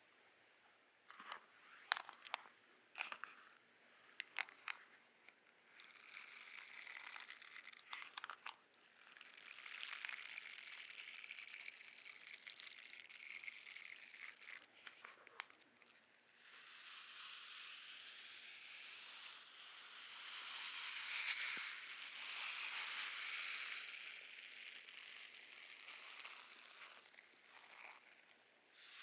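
Close-miked ASMR sounds: a comb drawn through hair in short strokes with a few sharp clicks, then, about halfway through, a sensory brush scratching steadily over a person's back.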